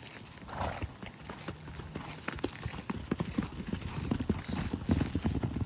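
Horses' hooves striking the ground in quick, irregular beats as the herd moves. The hoofbeats grow louder and denser toward the end.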